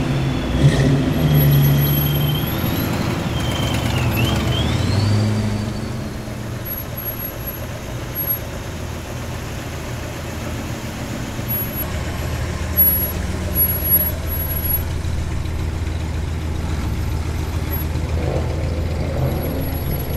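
Car engines running at low speed as a line of show cars drives slowly past one after another. A louder engine note with shifting pitch dies down about six seconds in, and a steady low engine rumble takes over from about twelve seconds on.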